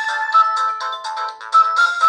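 Pirelli DP-L10 mobile phone playing one of its built-in polyphonic ringtones, synthesised by its Winbond W56940 40-voice sound chip. It is a quick melody of short notes, several at a time, with a thin sound and no low notes.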